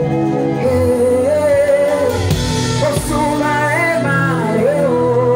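Gospel worship band playing, with a singer holding and sliding through a melody over sustained chords.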